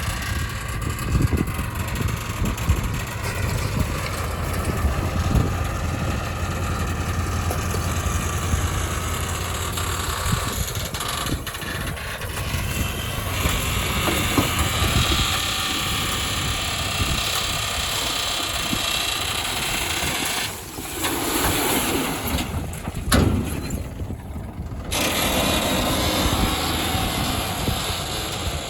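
Heavy diesel engines of a backhoe loader and farm tractors running under load while working mud, with occasional knocks. The sound changes abruptly a few times about three-quarters of the way through.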